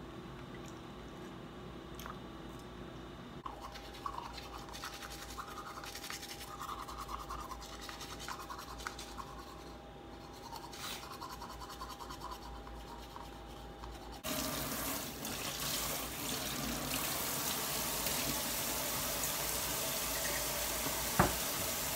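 Teeth being brushed over a kitchen sink with small scrubbing strokes. About two-thirds of the way through, the kitchen tap is turned on and water runs steadily into the sink, with two sharp knocks near the end.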